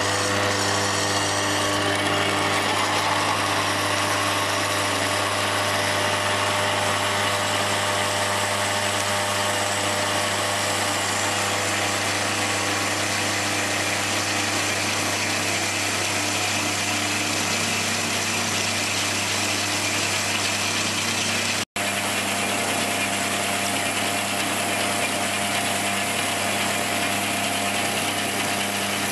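Horizontal metal-cutting band saw running steadily, its blade slitting a block of 4140 steel lengthwise, with a constant low motor hum under the cutting noise. The sound drops out for an instant about two-thirds of the way through.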